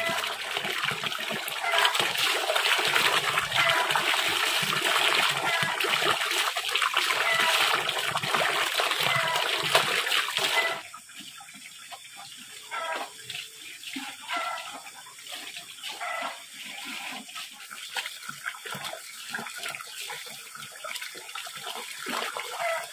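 Water running from a hose into a plastic basin of laundry, splashing as clothes are rinsed and wrung by hand. It is loud and steady until about halfway, then drops suddenly to quieter pouring with intermittent splashes.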